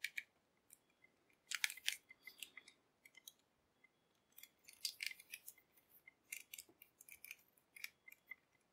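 Hard plastic action figure handled and turned in the hands: faint clicks and scrapes of plastic parts and fingers on plastic, coming in several short clusters.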